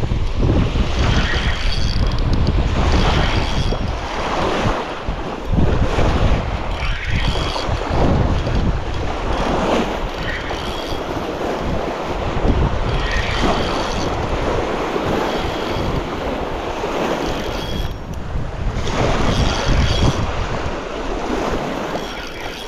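Choppy lake water lapping and washing over weedy shallows at the shore in irregular surges, with strong wind buffeting the microphone.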